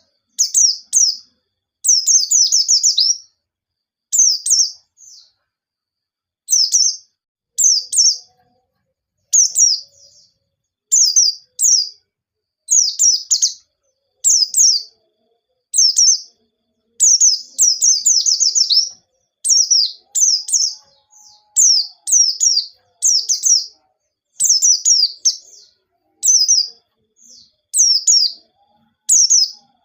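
White-eye (pleci) singing loud, short bursts of rapid high-pitched chirping notes, one burst every second or two with brief silences between.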